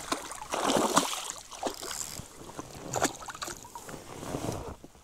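Water splashing and knocks against a small boat in irregular bursts as a hooked pike is brought in at the boat side.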